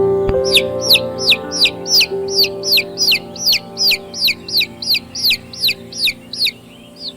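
Domestic chicks peeping: a regular run of high, downward-sliding peeps, about three a second, over soft sustained music chords that fade out near the end.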